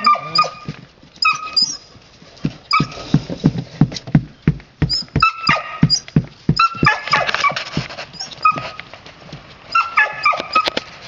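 Red standard poodle puppies giving short, high-pitched whining cries, in bursts several times over. A run of low thumps and scuffles sounds in the middle.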